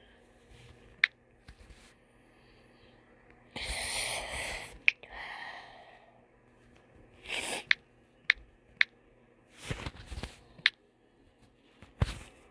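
Quiet room tone broken by about six sharp clicks and a few short, noisy bursts close to the microphone, the longest lasting about a second.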